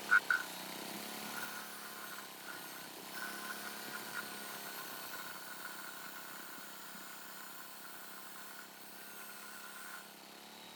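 A machine running steadily with a humming, multi-toned drone, its pitch dipping briefly near the start. Two sharp clicks come right at the start.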